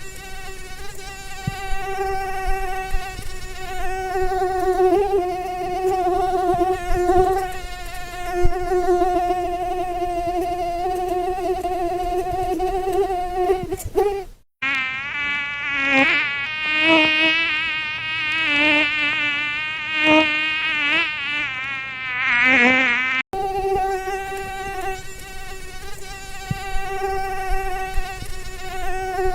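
Mosquito wing whine: a high, steady buzz. For about nine seconds in the middle it switches abruptly to a buzz whose pitch wavers up and down, as when the mosquito flies around close by, then cuts back to the steady whine.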